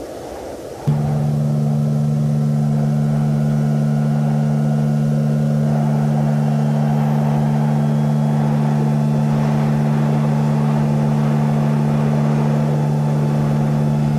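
Dark ambient drone music: a noisy rumble, joined about a second in by a sudden, steady low droning tone that holds throughout.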